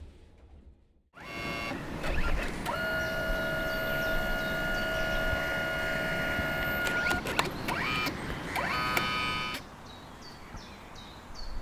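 Kodak Mini instant photo printer running as it prints and feeds out a photo: a motor whine with steady tones that starts about a second in, shifts in pitch near the end of the print and stops abruptly shortly before the end.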